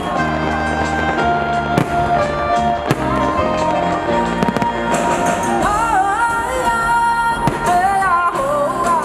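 Fireworks going off in several sharp bangs over loud music, with a wavering sung melody in the second half.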